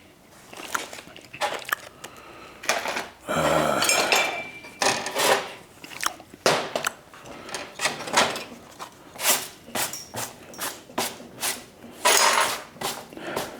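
Clamps being set on a metal workpiece: irregular metallic clanks and knocks, with a couple of longer scraping rubs of metal on metal.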